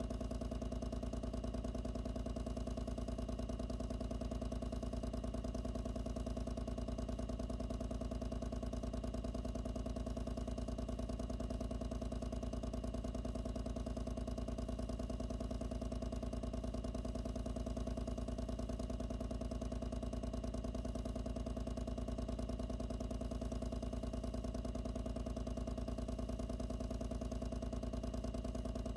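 Loud pump running continuously, recorded with the microphone inside its enclosure: a steady hum with a strong low drone and several constant overtones.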